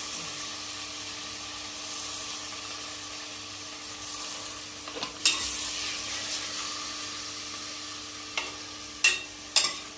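Chopped spinach sizzling in hot oil in a pressure cooker pan, the sizzle slowly dying down. In the last couple of seconds a metal spoon stirs it, knocking against the pan a few times.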